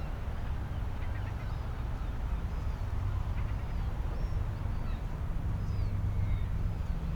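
Seafront ambience: a steady low rumble with faint, distant seagull calls, several short calls scattered through.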